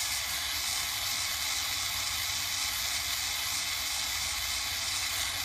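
Gas torch flame hissing steadily over molten gold in a ceramic melting dish, with a low rumble underneath.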